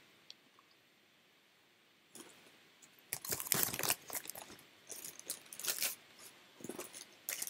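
Small hard plastic toys clicking and clattering as they are handled, with some rustling. It begins about two seconds in, in irregular bursts.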